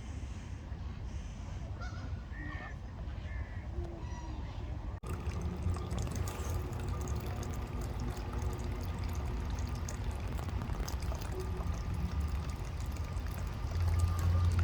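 A few faint duck calls over a low rumble. About five seconds in, the recording cuts abruptly to running, trickling water with a steady low hum underneath.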